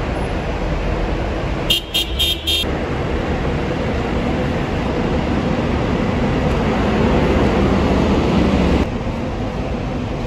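Traffic noise around a bus station, with a rapid series of short vehicle-horn toots about two seconds in. A lower vehicle rumble builds through the middle and cuts off abruptly near the end.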